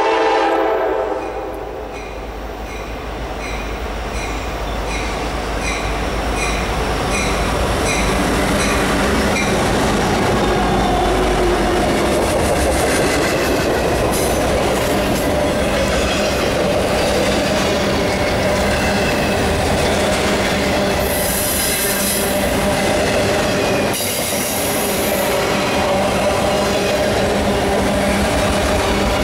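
A freight train's locomotive horn dies away in the first second, and a grade-crossing bell rings about twice a second for several seconds. Then loaded autorack freight cars roll past close by with a steady rumble and clatter of wheels on rail, and wheels squeal briefly twice in the last third.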